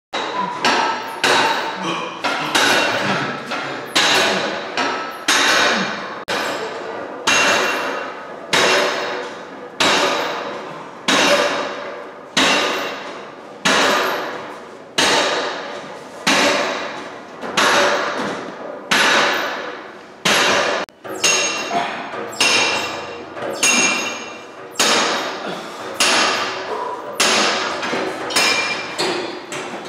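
Background music built on a steady beat of struck, ringing notes that change pitch from strike to strike, about two notes every second or so.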